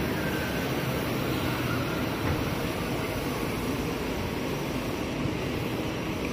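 Steady street traffic noise, an even hum of vehicles, with a single small knock about two seconds in.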